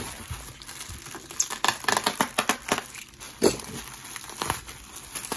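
Plastic bubble wrap crinkling and crackling as hands squeeze and unroll a wrapped pouch, in a quick run of sharp crackles.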